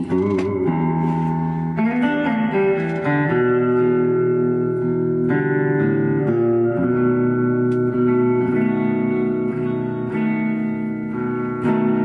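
1968 Guild Starfire electric guitar played in a slow improvisation: picked chords and single notes left to ring, with a few notes bent in pitch.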